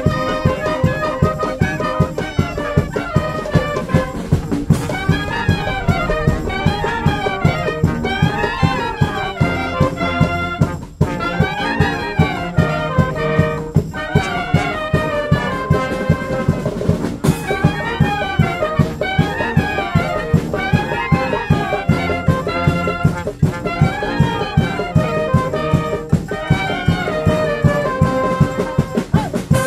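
Brass band (fanfare) playing an upbeat tune: trumpets and trombones over a steady beat, the melody running up and down in quick figures.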